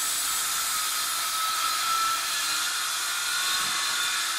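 Ryobi R18CS cordless circular saw running steadily, most likely cutting timber: an even hiss with a faint steady whine.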